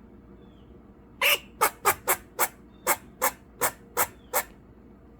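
Eastern grey squirrel barking its alarm call at crows: about ten short, sharp barks in a quick series, roughly three a second, starting a little over a second in.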